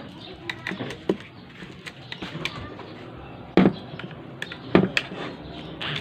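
Plastic housing of a JBL Cinema SB250 soundbar knocked and set down on a wooden workbench as it is handled and turned over: a scatter of small clicks, then two louder knocks a little over a second apart in the second half.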